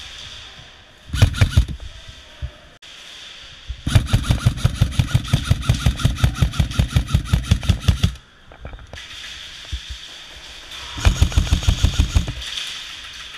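Airsoft electric rifle firing on full auto in rapid, even bursts: a short burst about a second in, a long burst of about four seconds from about four seconds in, and another burst of just over a second near the end.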